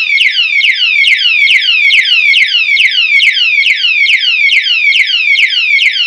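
Built-in electronic siren of an alarm padlock sounding its tamper alarm: a loud, rapid string of falling high-pitched sweeps, several a second. This is the alarm the lock gives when someone tries to break it.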